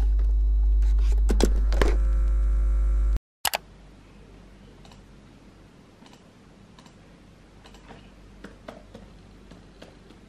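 Music held on a sustained chord with a deep bass cuts off abruptly about three seconds in. Then come faint, scattered clicks of typing on a laptop keyboard.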